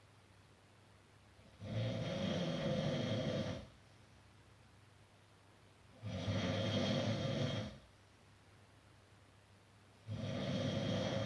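A person snoring: three long snores of about two seconds each, coming roughly every four seconds, with quiet between them.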